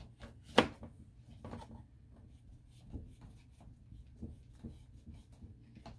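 Pencil drawing on a large sheet of paper: a run of short, light strokes, with one sharp tap about half a second in.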